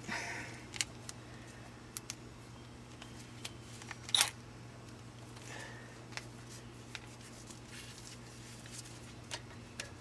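Light scattered clicks and metal clinks of hand wrenches on a brake caliper as the slider-pin bolt is worked loose, with one louder clank a little after four seconds. A faint steady low hum runs underneath.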